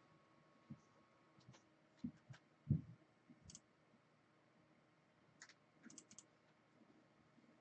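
Faint, scattered clicks and a few soft knocks from someone working at a desk, the loudest knock nearly three seconds in.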